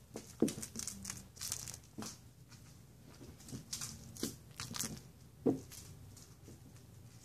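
Kittens scampering and pouncing on carpet while playing with a string toy: scattered soft thumps and short rustles, the loudest thump about five and a half seconds in.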